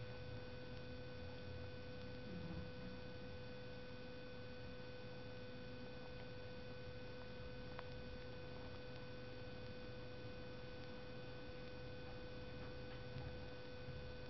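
A faint, steady hum made of several unchanging tones, with a few soft single ticks.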